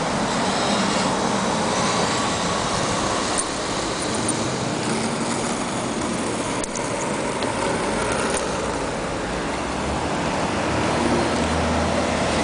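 Street traffic: cars and a pickup truck passing on a multi-lane city street, a steady wash of engine and tyre noise.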